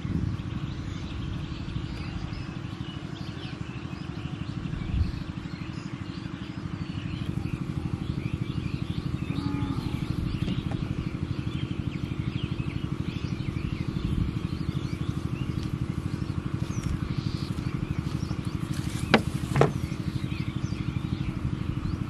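A small engine running steadily at an even, fast pulse, with birds chirping faintly over it. Two sharp clicks about half a second apart come near the end.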